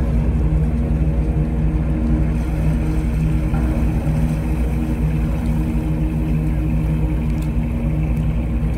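A ship's engine running steadily at a constant speed: a low hum with several steady tones and no changes.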